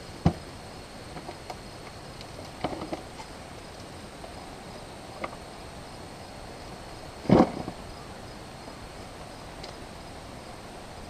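Steady insect chirring with a few scattered knocks and clunks of things being handled, the loudest about seven seconds in.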